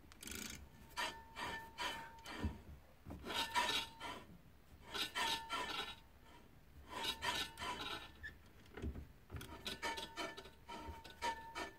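Trailer drum brake turned by hand: the new brake shoes scrape against the drum in repeated passes every second or two, with a faint squeal in some passes. The owner puts the drag down to the new linings and expects it to go away as they bed in.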